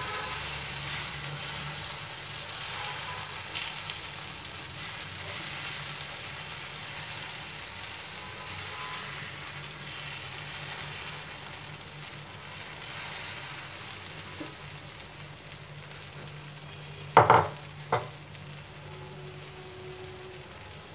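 Wheat dosa batter sizzling on a hot cast-iron dosa griddle, a steady frying hiss, while a steel ladle scrapes it round to spread it. Near the end come two sharp clinks, the loudest sounds here, about a second apart.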